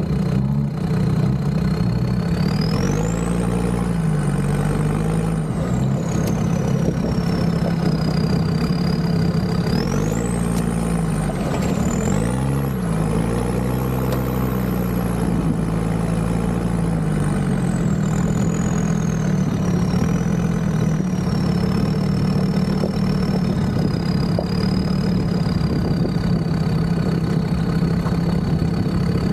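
Land Rover Discovery 2 diesel engine running while driving, its revs dropping and picking up again about 3 seconds in and again around 10 to 13 seconds. Over it a thin high whine rises and falls with the engine.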